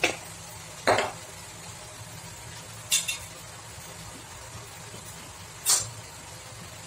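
Chicken pieces frying in oil and ghee in a metal pot on a gas burner: a low steady sizzle with a few short, sharp pops, about a second, three seconds and nearly six seconds in.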